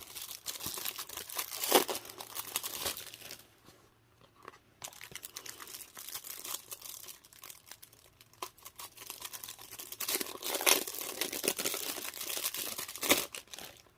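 Knife boxes and their wrapping being opened by hand: crinkling, rustling and tearing of packaging with small clicks and knocks, in uneven bursts that are quieter about four seconds in and busiest around ten to eleven seconds in.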